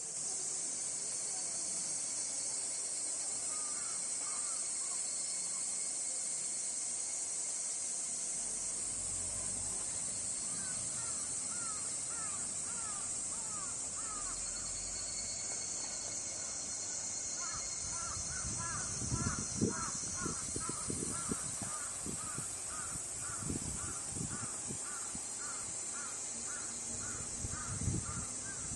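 Steady high-pitched drone of summer insects, with a bird calling from about halfway on in a quick series of short repeated notes, and a few dull thumps in the second half.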